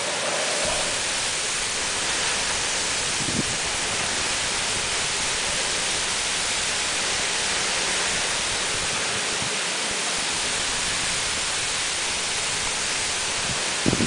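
Typhoon wind and heavy rain: a steady rushing noise of driving rain and bamboo and trees thrashing in the gale. A faint knock sounds about three seconds in and again near the end.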